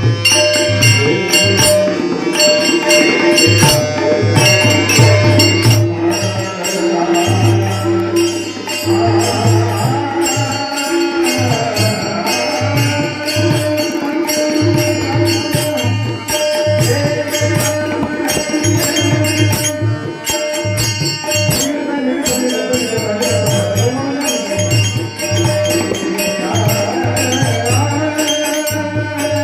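Marathi devotional bhajan music: tabla playing a steady rhythm with deep bass strokes under held sustained notes, with bright jingling percussion and a singing voice coming in at times.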